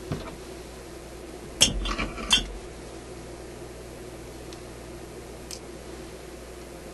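Metal hand tools clinking and clattering against metal: a click at the start, then a short cluster of sharp clinks about a second and a half in, over a steady low hum.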